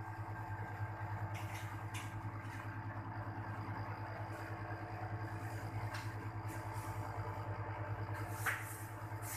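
Split air conditioner outdoor unit running, its compressor giving a steady low hum with a few light clicks.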